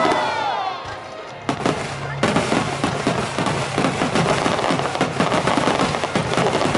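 Aerial fireworks going off: a few gliding whistles in the first second, then from about a second and a half in a dense, rapid crackle of many small bursts.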